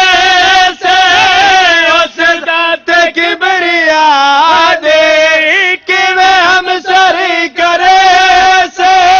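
A man's voice chanting a Punjabi couplet in long held, wavering notes with short breaks between phrases, amplified through a microphone.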